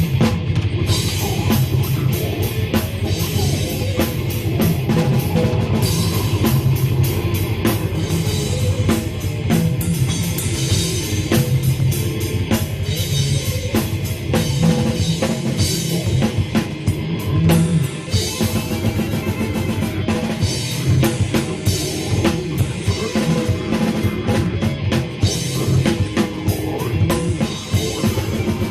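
Live rock band playing loudly: a drum kit pounding with steady hits over guitars.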